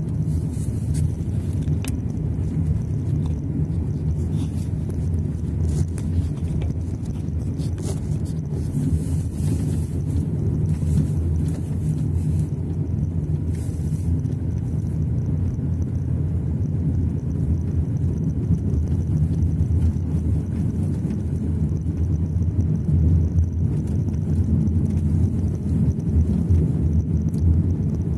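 Car driving on a snow-packed road, heard from inside the cabin: a steady low rumble of engine and tyres, with short faint hisses now and then.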